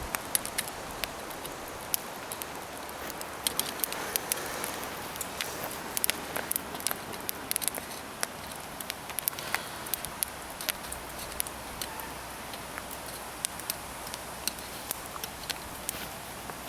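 Charcoal fire under shashlik skewers crackling, with irregular sharp pops over a steady hiss.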